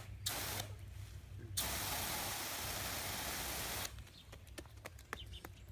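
Water hissing from a garden hose spray nozzle in bursts that start and stop suddenly as the trigger is squeezed and let go, with a long spray of about two seconds starting a second and a half in. A few light clicks follow near the end.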